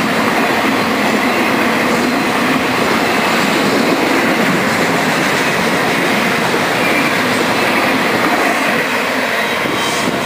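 Intermodal freight cars loaded with shipping containers and trailers rolling past at speed: a loud, steady noise of steel wheels running on rail.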